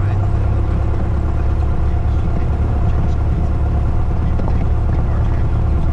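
Cessna 172's piston engine and propeller running steadily, heard from inside the cockpit as a low, unchanging drone.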